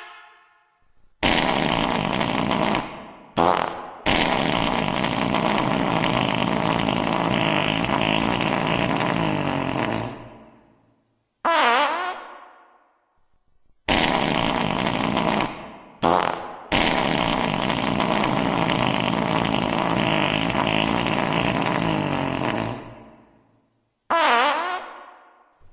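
A run of fart sound effects, panned around in 8D audio. Short blasts and two long raspy ones of about six seconds each that fade out are broken up by short, wavering, higher-pitched toots, and the same run of sounds plays twice.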